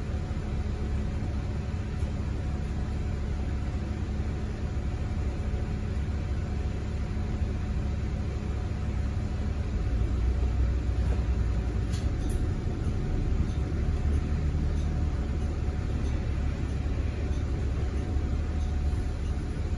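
Cabin sound of a 2018 Nova Bus LFS hybrid-electric bus running: a steady low rumble with a faint steady hum over it. The rumble grows louder about halfway through, and there is a single faint click a couple of seconds later.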